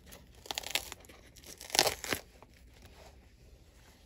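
Dry, crackling tearing of old boot-bottom filler and sole debris being pulled away from around the steel shank, in two bursts: a shorter one about half a second in and a louder one near the middle.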